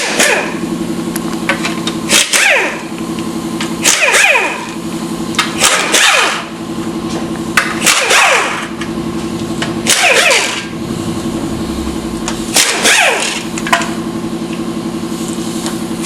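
Pneumatic tool run in short bursts about every two seconds, each burst winding down in pitch as the trigger is let go, over a steady mechanical hum. This is typical of air-tool work taking the bolts out of an automatic transmission's oil pan.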